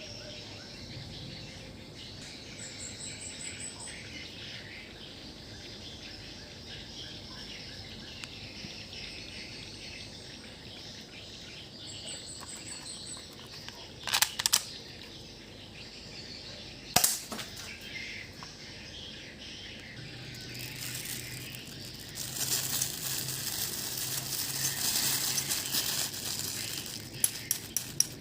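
P377 spring-powered airsoft pistol firing a few sharp snapping shots: a close pair around the middle, a single one a few seconds later, and a quick run of clicks near the end, over a steady outdoor background. Shortly before the last clicks, a rougher stretch of noise builds up.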